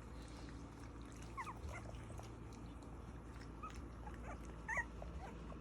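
Three-week-old sheepadoodle puppies whimpering and squeaking: short, high, thin cries scattered through, the loudest about three-quarters of the way in.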